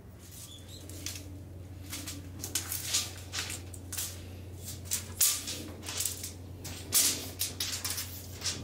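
Irregular crunching and scraping on gravelly dirt ground, coming in uneven strokes with a few louder ones, over a steady low hum.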